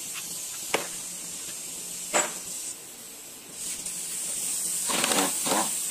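Two sharp metal clinks of a hand tool on an engine's valve cover and cylinder head during teardown, over a steady hiss.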